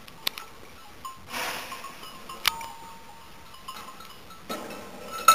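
Sheep feeding at a metal trough: a few sharp metallic clinks, one ringing briefly, a breathy snuffle about a second in, and a louder jumble of feeding sounds near the end.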